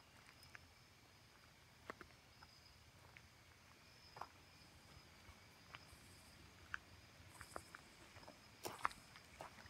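Near silence: faint, scattered clicks and taps over a faint steady high tone and hiss.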